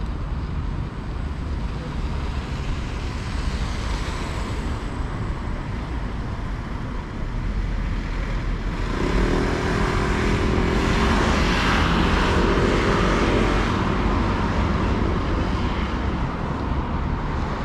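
Steady road-traffic rumble. About nine seconds in, a motor vehicle passes close by: its engine is loudest for a few seconds, then fades.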